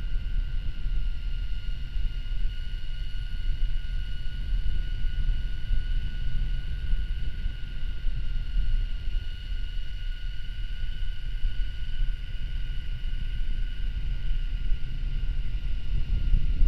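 Wind buffeting the microphone on a moving electric mountain bike, a constant low rumble, with a steady high-pitched whine from the bike's electric motor running at an even speed.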